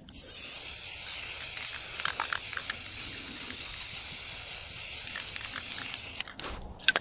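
Aerosol spray-paint can spraying a steady hiss onto cardboard, cutting off suddenly about six seconds in.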